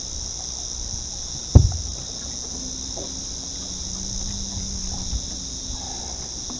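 Steady, high-pitched drone of insects calling, with one sharp, loud knock on the boat about one and a half seconds in as a big flathead is picked up off the deck.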